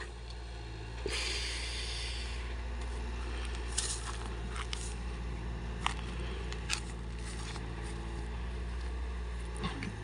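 A steady low rumble with a burst of hiss about a second in, and a few short clicks and rustles from people eating by hand off banana leaves.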